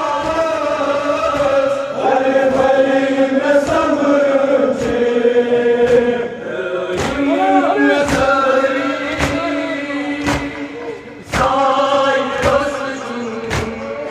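Men chanting a Kashmiri nauha, a Muharram mourning lament, on long held notes. Mourners beat their chests in time, a sharp slap about once a second.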